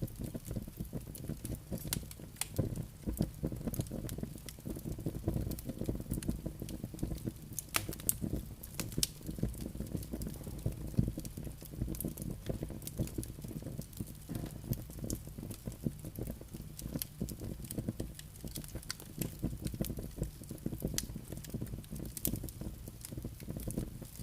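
Wood logs burning in a fireplace: dense irregular crackling and sharp pops over a steady low rumble of the flames.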